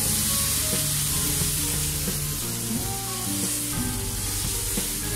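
Thin rice-flour batter sizzling as it is drizzled from a plastic bottle onto a hot, oiled nonstick pan, a steady hiss. Background music with held low notes plays underneath.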